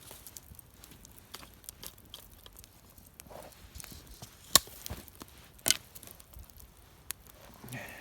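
Wood campfire crackling, with scattered sharp snaps and two louder cracks about halfway through.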